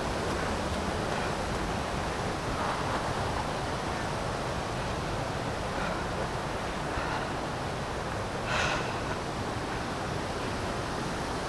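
Steady, even rushing noise, with a brief faint sound about eight and a half seconds in.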